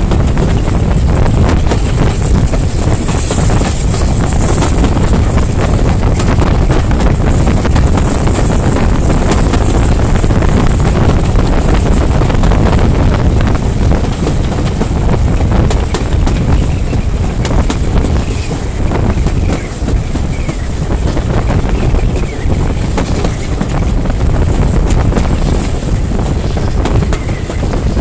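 Wind buffeting the microphone held out of a moving train's window, over the steady rumble of the coaches running on the rails.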